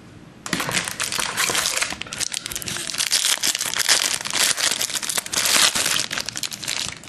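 A shiny trading-card pack wrapper being torn open and crumpled by hand: dense crinkling and crackling that starts about half a second in and stops just before the end.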